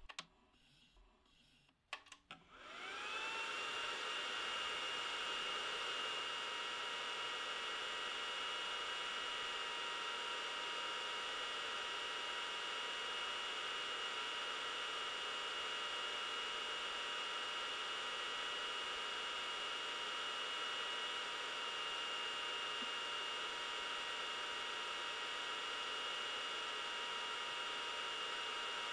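xTool D1 Pro 20W laser engraver running a job, its fans spinning up about two and a half seconds in, then whirring steadily with two fixed tones over an airy hiss. A few soft clicks come before it starts.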